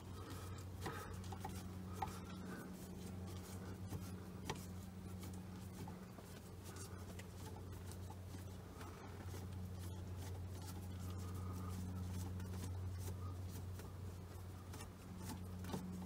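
Faint scratching and small clicks of a Phillips screwdriver being turned by hand to back out screws, over a steady low hum.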